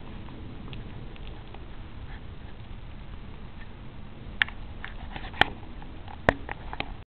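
Steady low outdoor rumble with scattered faint ticks and pattering, and three sharp clicks in the second half, about a second apart. The sound cuts off suddenly just before the end.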